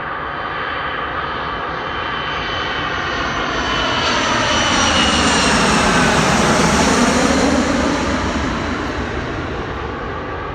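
Boeing 727-200F freighter coming in to land, its three Pratt & Whitney JT8D turbofans growing louder to a peak about six or seven seconds in, then fading as it passes. A whooshing sweep in pitch comes with the pass.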